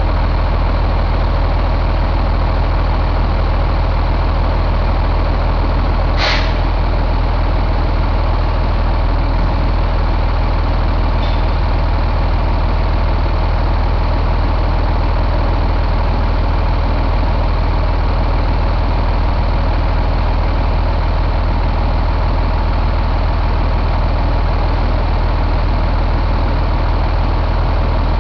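1999 Cummins ISC 8.3-litre inline-six turbodiesel idling steadily. A brief sharp click comes about six seconds in, and a fainter one about five seconds later.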